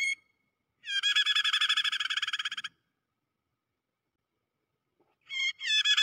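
Prenjak (prinia) distress call, the chatter of a bird caught in a trap: a fast run of repeated scolding notes lasting about two seconds, after a brief note at the start, with another run beginning near the end.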